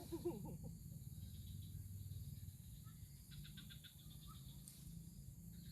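Faint animal calls: a short wavering call right at the start, then a quick run of high chirps about three seconds in, over a low steady rumble.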